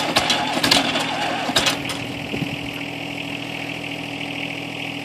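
Zetor Crystal 8045's four-cylinder diesel engine running just after a cold start, its block heater broken. Sharp knocking clatter over the first two seconds, then it settles into a steadier idle.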